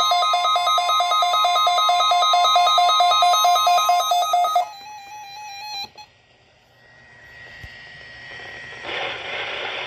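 NOAA Weather Radio alert alarm: rapid electronic beeping over a steady tone, the attention signal of a required weekly test. It stops about four and a half seconds in, a short single tone follows, and then radio static hiss rises, louder near the end.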